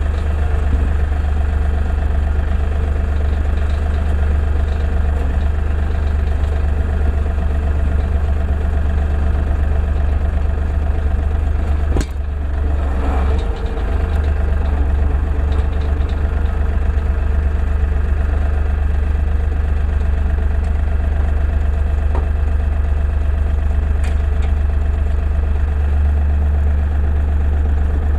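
LS MT240e compact tractor's diesel engine running steadily, with one sharp click about twelve seconds in.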